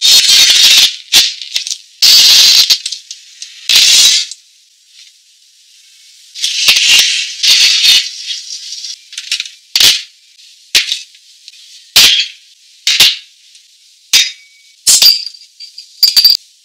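A run of short, loud rattling swishes, like a shaker, a dozen or so with short gaps between them; the last two, near the end, carry a brief ringing clink.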